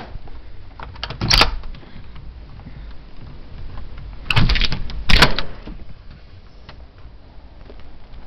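Three loud knocks or bangs, about a second, four and a half and five seconds in, with quieter rustling between: a door being handled, pushed open and shut.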